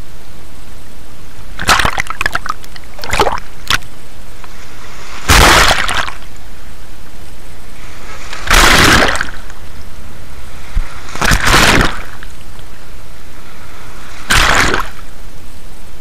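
Small sea waves breaking over shoreline rocks and splashing onto a camera at the waterline: a splash every few seconds over a steady hiss.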